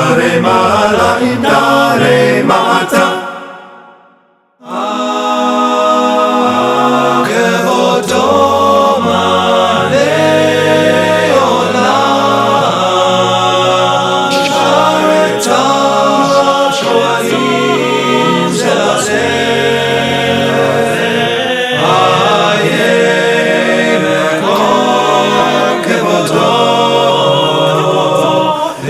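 Synagogue men's choir singing Hebrew liturgy a cappella in several-part harmony with a low bass line. One passage fades out about three seconds in, and after a moment's silence another passage starts.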